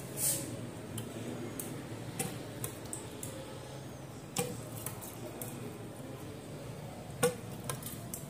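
Scattered light taps and clicks of a plastic tube and steel pots being handled, with a short rustle near the start and a sharper knock near the end, over a low steady hum.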